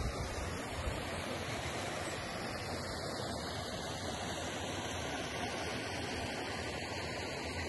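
Steady rush of river water spilling over a small weir and rocks.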